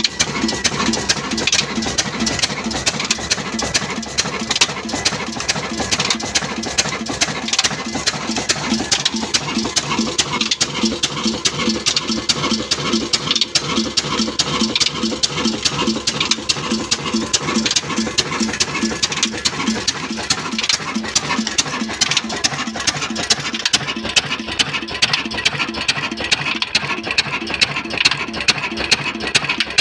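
Old 22 hp diesel engine running steadily, driving a flour mill through its flywheel and a flat belt, with a rapid, regular knocking beat.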